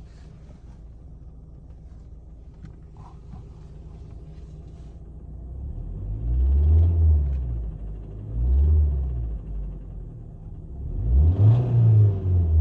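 Fiat Bravo's 1.4 T-Jet turbocharged four-cylinder engine idling, then revved three times, each rev rising in pitch and falling back. The owner reports a knocking noise from this engine since recent maintenance.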